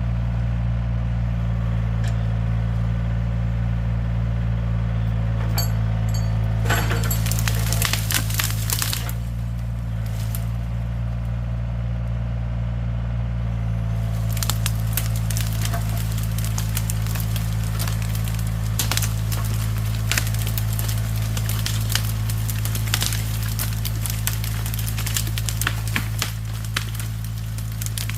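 Mini excavator engine running steadily while chained pine logs are dragged through the woods, with branches and brush cracking and snapping. The snapping comes in a short cluster about seven seconds in, then keeps on almost without a break through the second half.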